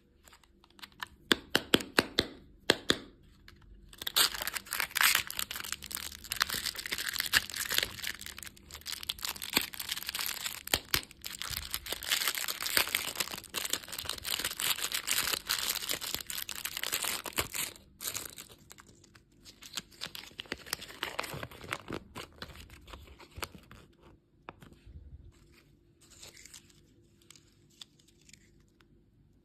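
Candy packaging being torn open and crinkled by hand: a few sharp crackles, then a long stretch of continuous tearing and crinkling that thins out to lighter, sparser rustles over the last third.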